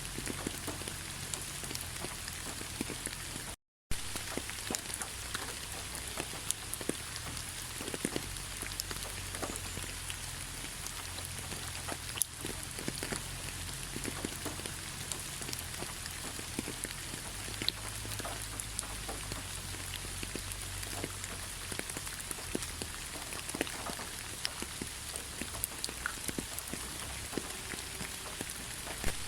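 Steady rain falling, with many individual drops tapping throughout. The sound cuts out for a split second about three and a half seconds in.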